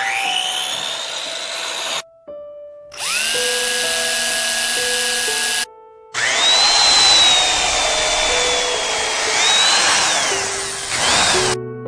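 Electric power tool working wood in short cut-together clips. Its motor whine rises as it spins up, then runs steadily, and in a louder stretch of cutting noise the whine dips and recovers under load a few times. Background music plays underneath.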